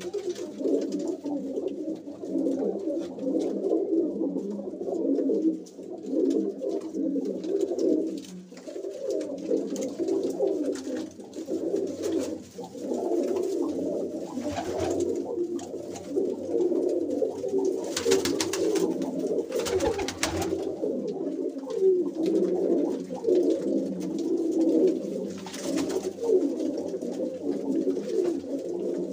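A flock of domestic breeding pigeons cooing without a break, many calls overlapping in a small room. There are a few short bursts of noise about halfway through and again near the end.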